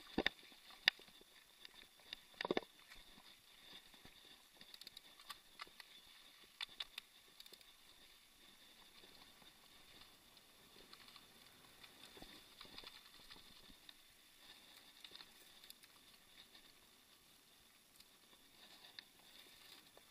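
Mountain bike rolling over a dirt and gravel trail: faint tyre crunch with scattered rattles and knocks as the bike jolts over bumps, the sharpest ones near the start and about two and a half seconds in.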